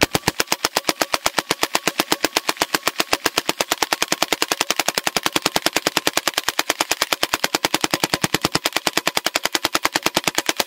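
Full-auto .22 caliber air rifle firing one long continuous burst of pellets, about ten shots a second at an even rate. It is a single 100-shot string with the trigger held down.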